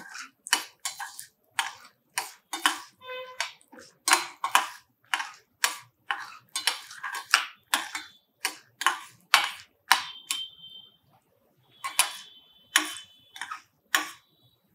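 A steel spoon stirring peanuts and lentils roasting in a little oil in a stainless steel pan for a tempering, clinking against the pan about twice a second, with a brief metallic ring now and then.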